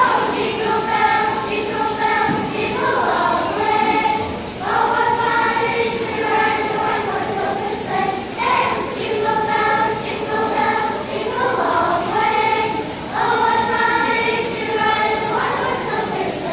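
Children's choir singing, held notes in phrases that break off every few seconds.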